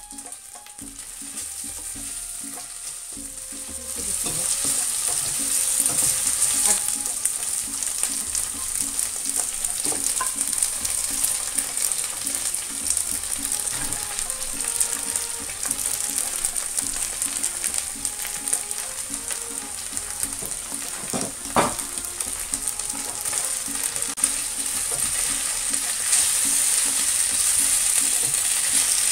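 Chicken and vegetables sizzling in hot oil in a wok, stirred and scraped with a wooden spatula, with one sharp knock of the spatula about two-thirds of the way through. The sizzle grows louder about four seconds in as raw vegetables go into the hot wok. Faint background music plays underneath.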